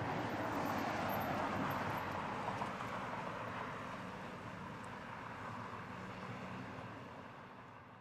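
Road traffic noise: a steady rush of passing vehicles, loudest about a second in and slowly fading toward the end.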